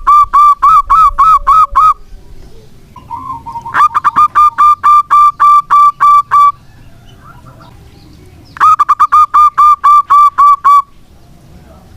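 Zebra dove (local perkutut) singing loudly: three bouts of rapid, evenly spaced cooing notes, about four or five a second. The first bout ends about two seconds in, the second runs from about four to six and a half seconds in, and the third comes near the end.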